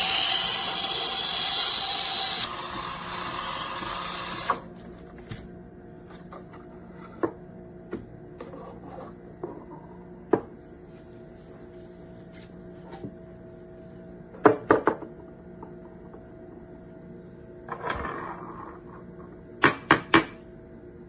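Espresso machine hissing loudly. The hiss drops after about two and a half seconds and stops about four and a half seconds in. Then comes a low steady hum with scattered clicks and knocks, and three quick clacks near the end.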